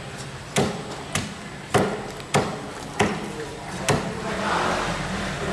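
Heavy cleaver chopping through a mahi-mahi behind the head and striking the plastic cutting board: about six sharp chops, roughly every half second. A steady rushing noise swells in the last second or so.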